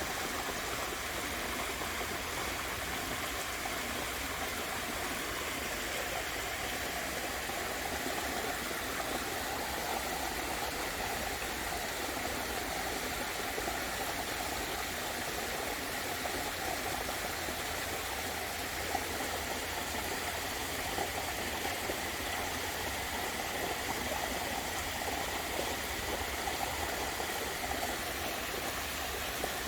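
Waterfall splashing steadily: an even, unbroken rush of falling water.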